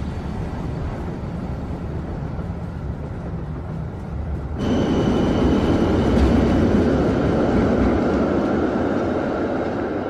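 Low, steady rumble of riding inside an electric tram, then, with a sudden cut about four and a half seconds in, a tram passing close by on the street: louder wheel and running noise with a steady high whine, easing slowly near the end.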